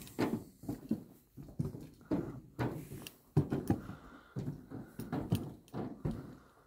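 Footsteps walking on a path, about two steps a second, each a short dull thud.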